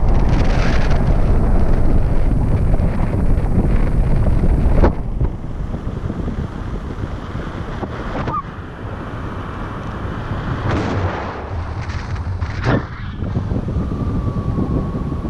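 Wind buffeting the camera microphone from the airflow of paraglider flight: a loud, steady low rumble, strongest for about the first five seconds and then easing a little, with a few brief knocks.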